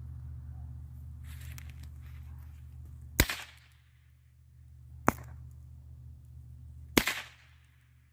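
Adult Snappers throw-down snap pops going off one at a time, three sharp cracks about two seconds apart, over a steady low hum.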